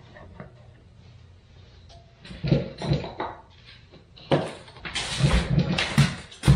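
Wooden trim pieces knocking and scraping as they are handled and pressed into place. A few knocks about halfway through, then louder rubbing and knocking near the end.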